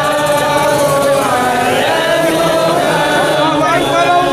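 Devotional chanting: a voice holding long, melodic notes that waver in pitch, with other voices joining in.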